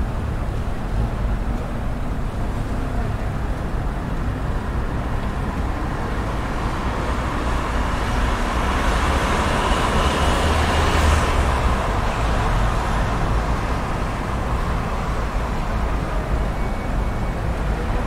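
Road traffic noise: a steady rumble of many passing vehicles, swelling for a few seconds about halfway through.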